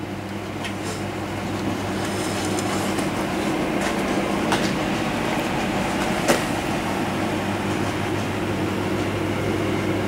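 A steady mechanical hum with a low drone, growing slightly louder about two seconds in, with a few faint clicks and a sharper tick about six seconds in.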